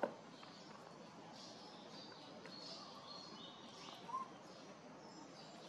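Faint outdoor ambience with scattered short, high chirps, a sharp click right at the start and a brief squeak about four seconds in.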